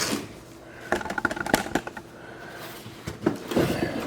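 Hard plastic tool carrying case being handled and opened: a few sharp clicks and knocks, about a second in and again near the end.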